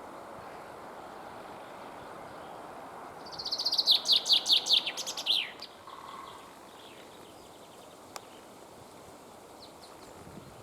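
Common chaffinch singing one full song phrase a little after three seconds in: a fast high trill that speeds into a run of descending notes and ends in a flourish. A few faint bird notes follow over a steady background hiss.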